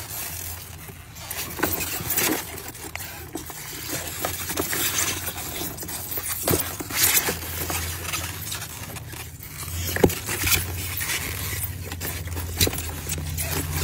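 Live mud crabs with cloth-bound claws scrabbling and scraping against each other and a styrofoam box as they are handled, with irregular clicks and scratches of shell and legs. A low steady hum runs underneath, growing louder about halfway through.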